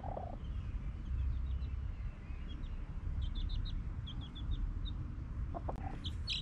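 Chickens and small birds calling over a steady low rumble. There are quick series of short high chirps midway and again near the end, and a brief lower chicken cluck at the start and shortly before the end.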